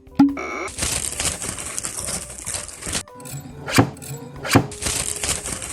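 Instrumental background music: sharp drum hits with held notes and a long hissing wash that comes in twice.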